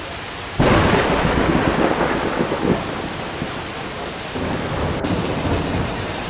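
Heavy rain pouring, with a roll of thunder that breaks in suddenly about half a second in and fades over the next couple of seconds into the steady rain.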